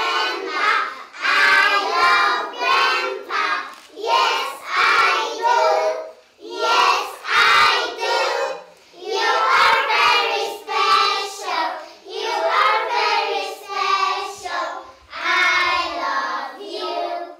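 A group of young children singing together in chorus, in short phrases with brief pauses between them.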